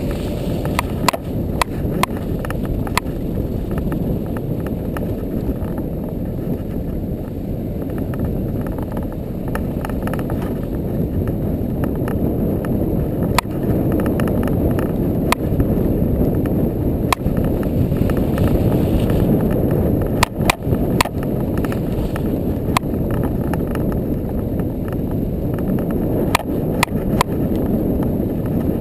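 ATV riding on a snowy track, heard through a camera mounted on the machine: a steady low rumble of engine and tyres, with sharp knocks and clicks scattered throughout.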